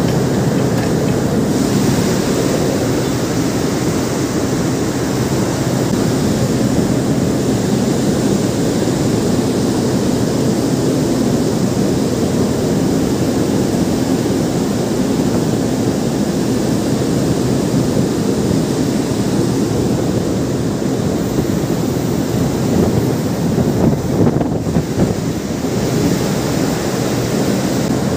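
Steady rushing noise of wind and sea, with wind buffeting the microphone.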